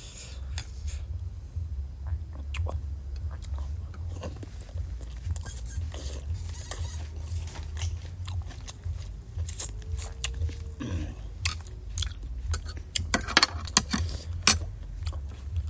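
Close-miked chewing and biting of boiled free-range chicken, with short crunches and wet mouth clicks, loudest and densest near the end.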